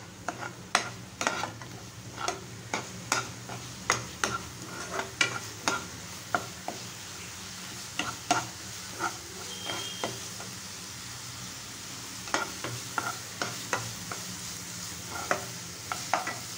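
Metal spatula scraping and knocking against a non-stick kadai in irregular sharp clicks as an onion and spice masala is stirred, over a steady sizzle of the masala frying in oil. The clicks let up briefly about two-thirds of the way through.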